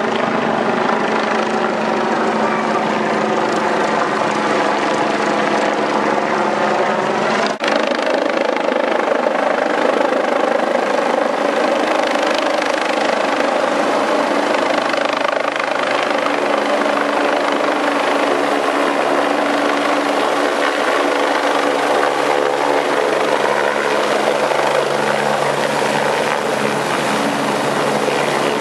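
Rescue helicopter's rotor and turbine engines running loud and steady as it comes in to land. The sound breaks off briefly about seven and a half seconds in, then carries on.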